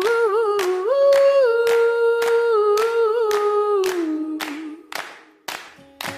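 Background music: a song opens with a wordless humming vocal held over a steady handclap-like beat, and turns quieter about four and a half seconds in.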